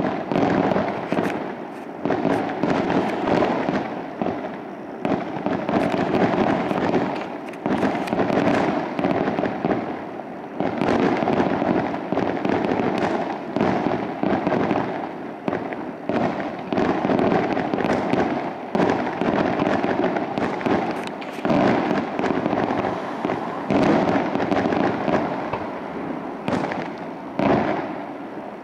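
Aerial fireworks display: a continuous barrage of shell bursts, many sharp bangs close together, with crackling and a steady rumble between them that never lets up.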